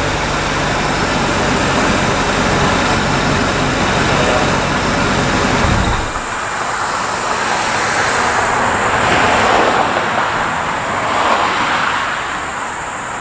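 Supercharged 5.4-litre V8 of a 2002 Ford SVT Lightning running with a steady low rumble, which drops away abruptly about six seconds in, leaving a rushing noise that rises and falls.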